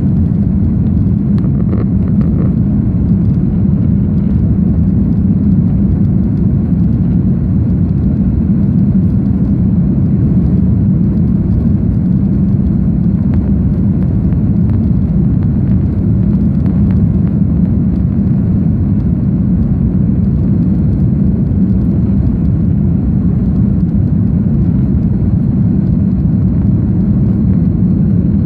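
Airbus A310 jet airliner heard from inside the cabin: a loud, steady low rumble of engines and airflow that holds constant, with a faint steady high whine above it.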